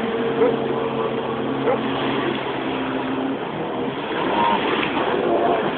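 Watercraft engine running steadily over wind and water noise, as from a jet ski on a lake.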